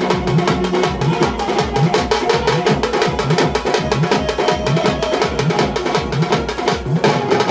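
Loud tasha drum music: fast, dense drum strokes over a heavy, pulsing bass beat, with the bass dropping out briefly near the end.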